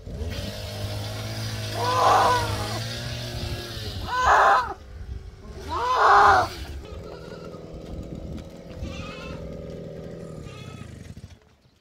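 A penned herd of goats bleating: three loud bleats about two, four and six seconds in, then fainter bleating from the herd. Under it runs a steady low hum that stops just before the end.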